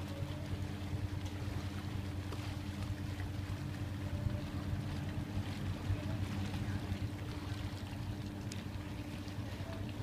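Engine of the car ferry's small towboat running steadily with a low drone as the ferry comes in to the landing.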